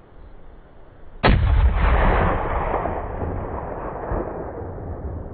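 A single .270 Winchester rifle shot about a second in, sharp at the start, followed by a long rolling echo that slowly fades.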